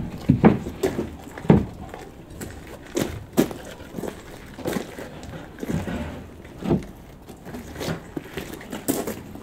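Footsteps on gravelly ground with irregular knocks and light clanks as sheet metal is handled and set on wooden sawhorses, about one knock a second.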